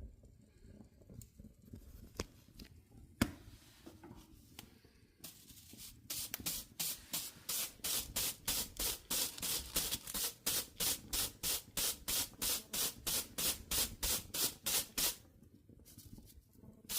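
Rapid, regular scrubbing strokes, about four a second, starting about six seconds in and stopping near the end, after a few scattered light clicks.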